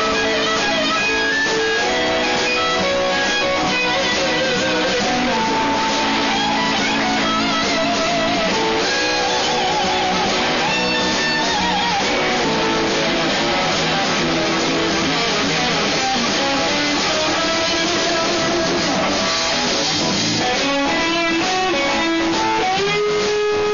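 Live instrumental blues shuffle on electric guitars and drums. A lead electric guitar plays held notes with vibrato over the band.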